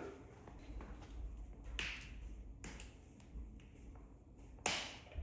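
Scattered light taps and clicks of hands handling oil bottles and tools, with one sharper knock near the end.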